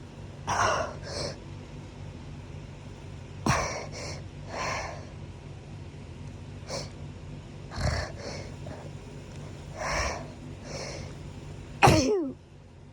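A person sneezing again and again from hayfever: several sharp sneezes a few seconds apart, with breaths between. The last sneeze, near the end, is the loudest and trails off into a falling voice sound.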